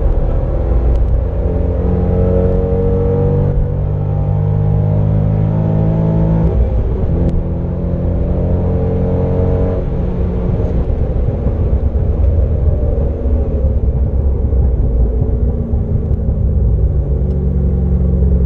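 2007 Corvette C6's 6.0-litre LS2 V8 pulling hard, heard from inside the cabin. The pitch climbs and drops back at gear changes about three and a half and six and a half seconds in, then the engine runs more steadily at high speed under wind and tyre noise.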